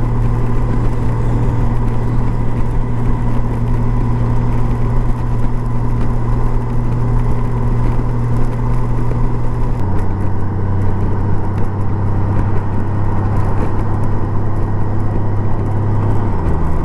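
Honda Gold Wing's flat-six engine running steadily at road speed under wind and road noise. Its pitch steps down once about ten seconds in and again near the end.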